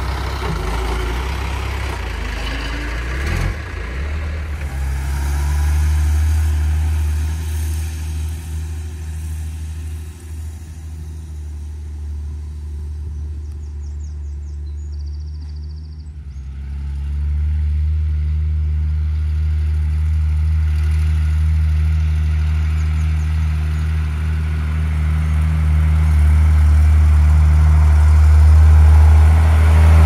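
New Holland tractor's diesel engine running steadily as it drives across a grass field with a fertiliser spreader on the back. The low drone fades in the middle, then grows louder near the end as the tractor comes close.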